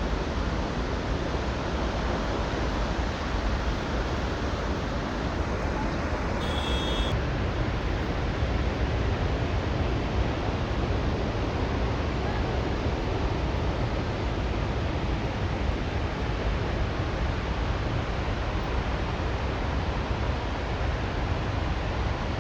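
Steady rush of a tall waterfall in heavy monsoon flow. A brief high-pitched chirp sounds about seven seconds in.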